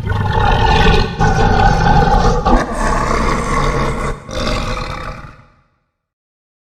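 Giganotosaurus roar sound effect: a long, rough roar in about four swells, fading out about five and a half seconds in.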